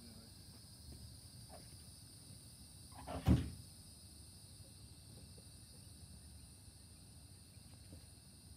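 A car door slams shut once, about three seconds in, with a brief scrape just before the bang. Steady insect chirring underneath.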